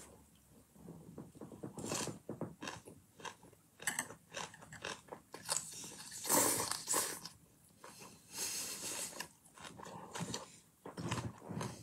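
Close-up chewing and biting of green onion kimchi (pa-kimchi): wet, crunchy mouth sounds in irregular bursts.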